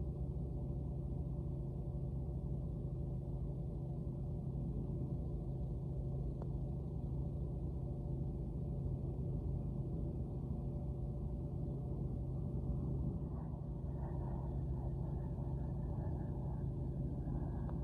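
Lakeside water pump running with a steady, unchanging hum made of several held tones.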